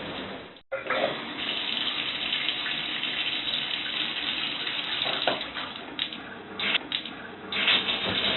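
Shower water running, a steady spray and splash. It drops out for a split second under a second in, then carries on, with a few louder splashing swells near the end.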